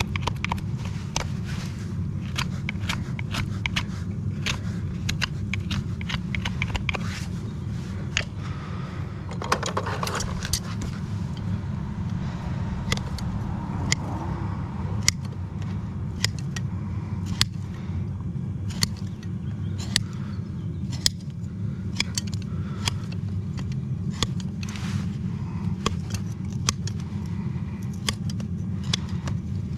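Farrier's tools working on a horse's hoof: irregular scraping and many sharp clicks and taps over a steady low hum.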